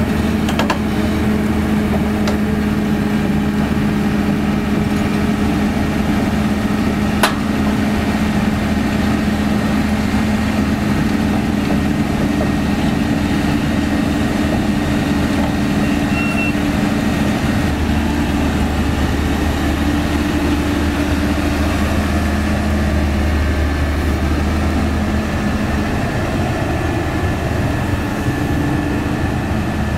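Caterpillar 320D excavator's diesel engine running steadily as the machine drives off the back of a self-loader truck, with one sharp click about seven seconds in. Past the middle, the low engine drone grows heavier for several seconds, then eases.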